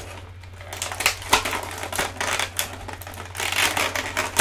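Clear plastic blister tray crinkling and clicking as an action figure is worked loose from it, with a few sharper snaps, the loudest about a second and a half in and at the end.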